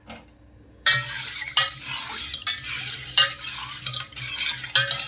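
Metal spoon stirring water with soaked basil seeds in a stainless steel bowl: repeated clinks and scrapes of the spoon against the bowl's sides over swishing, swirling liquid, starting about a second in.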